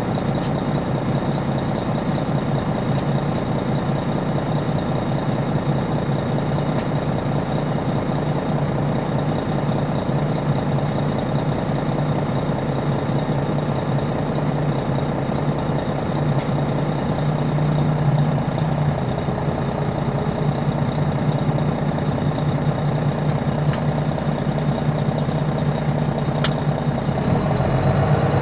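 Detroit Diesel Series 60 diesel engine of a 2002 MCI D4000 coach, heard from inside the bus, running steadily. Near the end its revs begin to rise.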